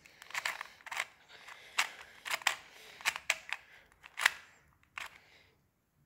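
A 2x2 Rubik's Cube being turned by hand, its plastic layers clicking and clacking with each twist in an irregular run of a few clicks a second as the same two turns are repeated. The clicks stop about five seconds in.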